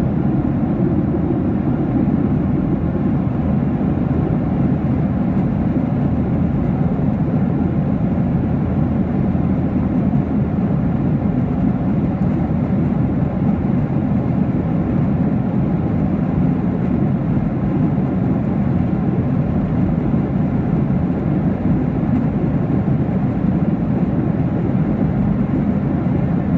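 Steady cabin noise inside a Boeing 737-800 in flight: the even, low rush of airflow and its CFM56-7B engines, heard from a window seat over the wing, holding constant throughout.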